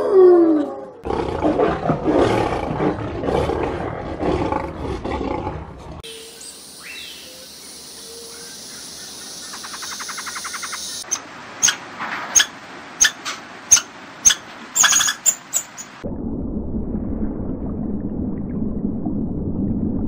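A wolf's howl falls away at the start, then a lion growls and roars for about five seconds, the loudest part. After a quiet gap come about ten short sharp calls, then a low steady rumble.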